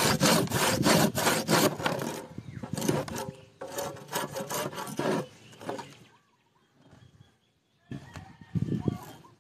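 Hand saw cutting through a bamboo root in rapid back-and-forth rasping strokes, about four a second, then slower strokes, stopping about six seconds in. A short low rustle comes near the end.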